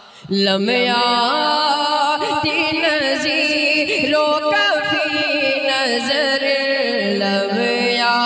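A man singing a naat, an Islamic devotional song, in a long ornamented vocal line with held, bending notes; the phrase begins about a third of a second in after a short breath-pause.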